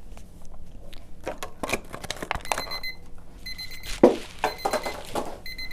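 Digital kitchen timer alarm going off: short bursts of rapid high beeps about once a second, signalling that its 7-minute countdown for boiling eggs has ended. Beneath it, clattering handling noises with a sharp knock about four seconds in.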